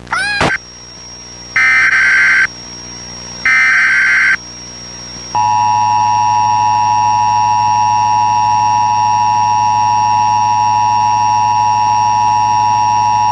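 Emergency Alert System tones from a TFT EAS encoder: two harsh, screeching data bursts of about a second each (the SAME header), then the steady two-tone EAS attention signal, which sounds for about eight seconds. A faint, steady high whine and a low hum run underneath.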